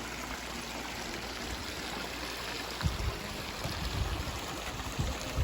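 Steady rush of water in the stream at Dainthlen Falls. Low bumps on the microphone come in from about three seconds in.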